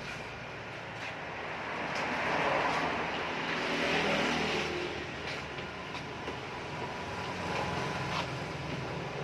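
Road traffic going by, a steady rush that swells twice, with a few faint clicks.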